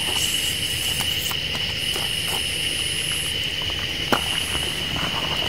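Steady chorus of night insects, crickets or katydids, a constant high-pitched buzz with a shriller trill coming and going above it. A few soft crackles come from the campfire, the sharpest about four seconds in.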